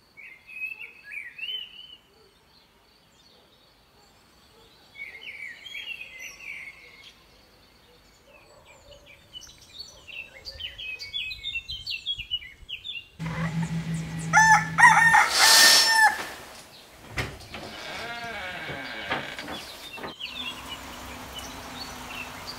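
A rooster crowing twice in the first seven seconds, followed by small birds chirping. About 13 seconds in, a sudden louder, fuller sound takes over.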